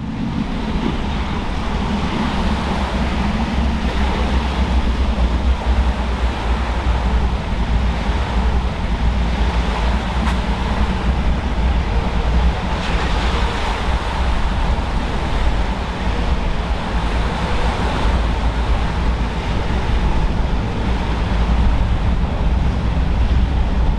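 Steady wind buffeting the microphone over rough water and waves, with the engines of boats running through the inlet.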